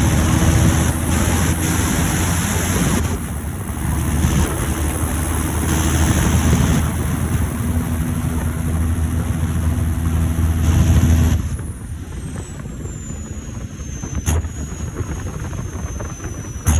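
John Deere 7530 Premium tractor's turbocharged diesel engine running under load on the road, with a thin high turbo whistle over it. About eleven seconds in the engine drops off and the turbo whistle slides slowly down in pitch as it spools down; two sharp clicks near the end.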